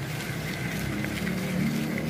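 A motor vehicle engine running steadily with a low hum, with a few faint clicks of a spoon stirring chatpate in a plastic mug.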